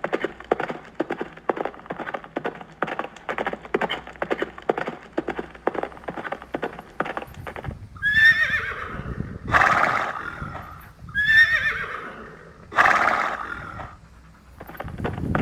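Horse hooves clip-clopping in a quick, even rhythm of about four steps a second. About eight seconds in, a horse neighs twice; each neigh starts as a high whinny and trails into a rougher, noisier part.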